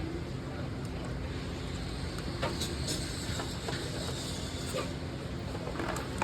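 Motorcycle engine running steadily, with scattered light ticks over the even rumble.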